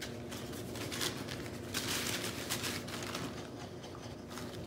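Paper towel crinkling and rustling in the hands as a paintbrush is wiped clean of excess paint: soft scratchy noises, loudest about two seconds in.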